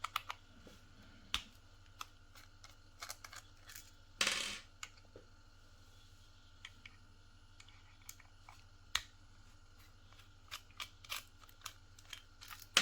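Light clicks and taps of small hair-clipper parts being handled and fitted, scattered irregularly, with one short scraping rustle about four seconds in.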